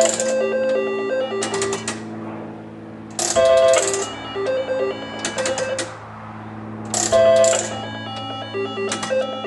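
IGT S-Plus Balloon Bars slot machine being played: three spins about three and a half seconds apart. Each opens with a loud burst, runs into a string of short electronic beep tones, and ends in quick clicks as the reels stop, over a steady electrical hum.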